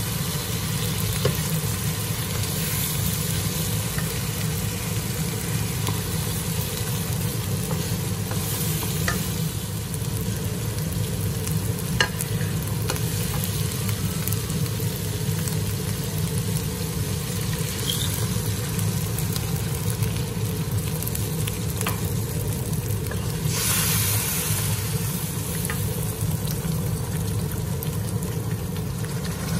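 Thick chili paste sizzling as it fries in a wok and is stirred with a plastic spatula, with now and then a sharp tap of the spatula against the pan. A steady low hum runs underneath, and the hiss swells for a second or two about 24 seconds in.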